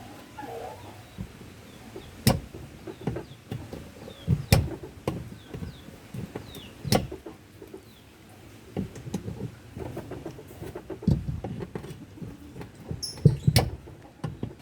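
Scattered knocks and clicks of hand work on a washing machine's pulsator as it is being removed, with a few sharper knocks several seconds apart.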